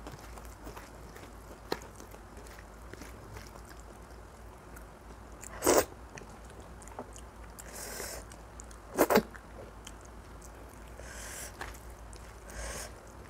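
Close-up mouth sounds of eating oily mutton curry: soft chewing and small wet clicks. Two louder, sharp mouth sounds stand out, about a third and two-thirds of the way in.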